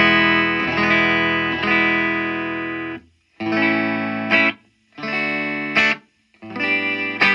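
Electric guitar played through a 1971 Fender Deluxe Reverb silverface tube amp, slightly overdriven. A chord rings and is re-struck twice, then stops. Three short chords follow, each choked off abruptly.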